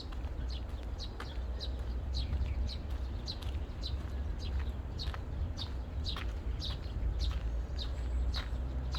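Birds chirping over and over, quick calls that fall sharply in pitch, two or three a second, over a steady low rumble.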